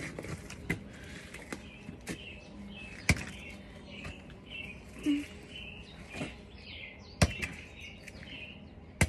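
Hammer striking a frozen plastic water bottle full of ice: several sharp knocks at irregular intervals, the loudest about three and seven seconds in. Birds chirp in the background.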